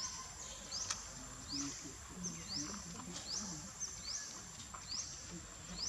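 Monkeys making short, low, wavering calls, over short high chirps that repeat about twice a second and a steady high whine.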